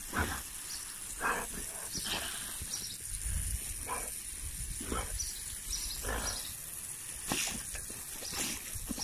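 Boxer dog snapping and biting at the spray from a garden hose nozzle: a steady hiss of water with a short wet chomp or splash about once a second.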